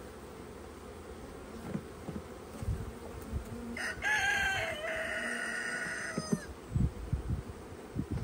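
Honeybees humming steadily around open hives, with a rooster crowing once about four seconds in: a single drawn-out call of some two seconds, falling slightly at the end. A few low wooden knocks come as comb frames are set into a hive box.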